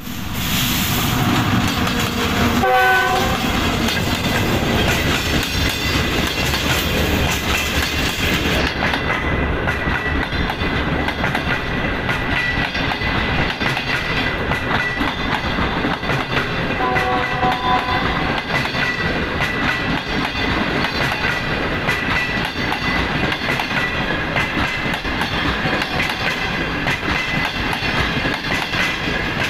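Diesel locomotive hauling a passenger train passes close by, its horn sounding briefly about three seconds in and again around seventeen seconds in. The coaches then roll past with a steady clickety-clack of wheels on the rails.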